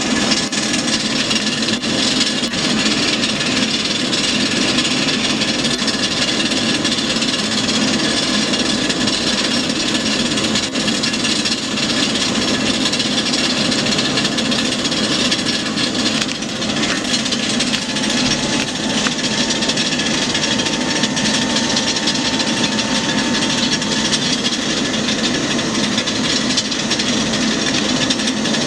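An Airbus A319 jet engine after shutdown, giving a steady, rough rasping and rubbing noise that holds at an even level. A faint thin whistle comes in for a few seconds past the middle.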